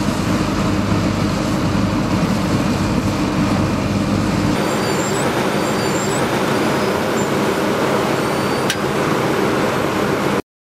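Diesel engines of a Vögele Super 1900-3 asphalt paver and a dump truck running steadily. About halfway through, the sound shifts to a closer, noisier machinery hum, with a faint click shortly before it cuts off abruptly near the end.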